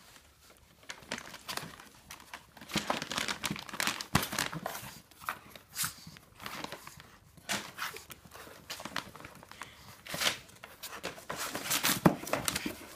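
Crinkling and rustling of plastic treat bags and packaging inside a cardboard box as a pug roots through it with its nose, in irregular spells of scratchy noise.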